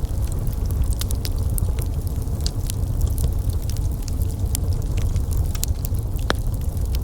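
Wood fire crackling, with frequent sharp irregular pops and snaps over a steady low rumble of burning flames.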